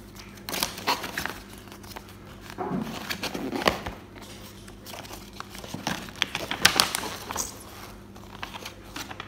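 A folded paper brochure rustling and crinkling in irregular bursts as it is pulled from a cardboard box, unfolded and handled.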